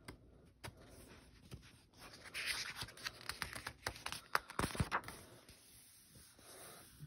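Paper pages of a picture book rustling and scraping as a page is turned by hand, with several small clicks, for a few seconds in the middle.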